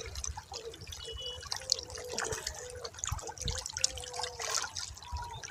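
Water trickling and bubbling, with irregular drips and gurgles.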